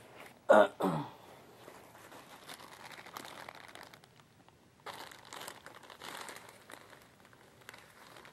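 Plastic crinkling and rustling as something is handled, in two spells, after two short loud sounds close together about half a second in.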